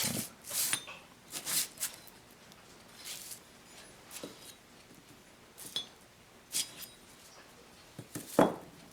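Chain hooks welded onto pads being handled: a scattered series of light metallic clinks and knocks, the loudest near the end.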